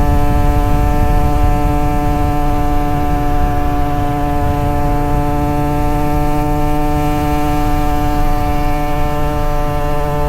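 Two-stroke motorcycle engine held at steady revs, running at one unchanging pitch throughout.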